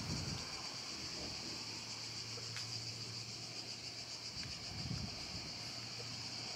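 Cicadas buzzing in a steady, high-pitched chorus. A low steady hum joins in about a second and a half in.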